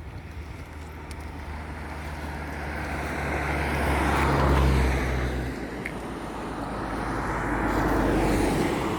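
Two road vehicles passing one after the other, the sound of each swelling up and dying away; the first is loudest about halfway through, the second near the end.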